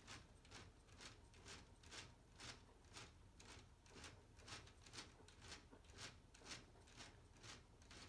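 Faint, even clicking, about two clicks a second, from a LEGO Technic gear train being cranked by hand to drive a large linear actuator that tips the truck's bed up.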